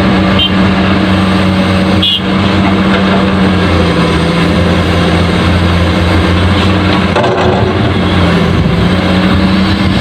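Truck engine running steadily, a loud even drone with no changes in pitch.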